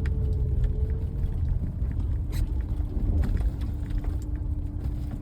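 Pickup truck driving, heard from inside the cab: a steady low rumble of engine and road noise, with the engine note dropping to a lower pitch about a second and a half in, and a few faint clicks.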